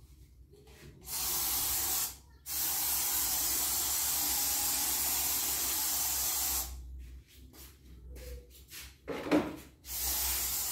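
Aerosol spray can hissing in three bursts: a short one about a second in, a long one of about four seconds, and another starting near the end. A short knock, the loudest moment, comes just before the last burst.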